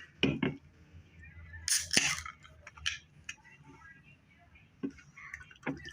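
Aluminium can of Cutwater lime margarita cocktail being cracked open: a short hiss and a sharp snap of the pull tab about two seconds in, the loudest sound, among a few light clicks and taps from handling the can.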